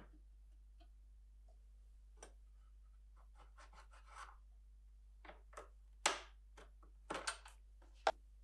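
Handling noise of a rusty metal train-lantern frame on a wooden workbench: scattered light clicks and taps with a few short scrapes, the sharpest about six seconds in and two more near the end.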